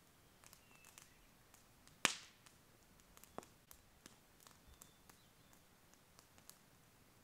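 Quiet campfire crackling with scattered small ticks, one sharp loud pop about two seconds in, and a smaller pop a little over a second later.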